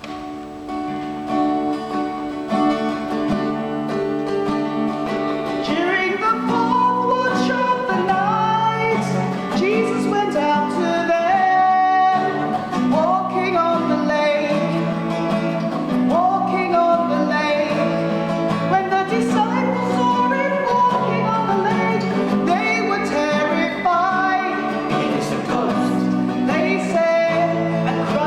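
Sung scripture reading: an instrumental introduction of held notes, then singing over the accompaniment from about six seconds in.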